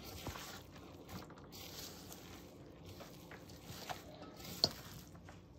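Gloved hand squeezing and tossing sliced onions and cabbage coated in wet flour batter in a stainless steel bowl: soft squelching with scattered light clicks, one sharper click near the end.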